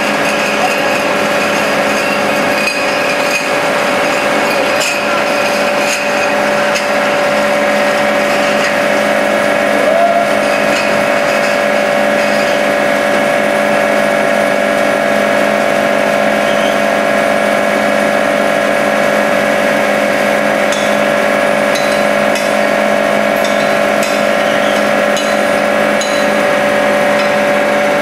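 Automatic glass bottle washing machine running: a steady mechanical hum holding several constant tones, with faint scattered clicks.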